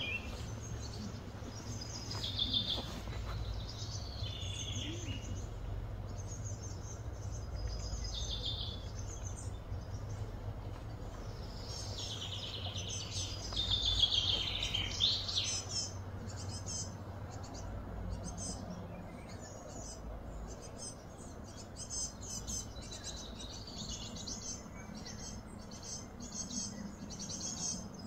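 Outdoor ambience of birds chirping and calling, loudest about halfway through, with short high pulses in the second half, over a steady low hum.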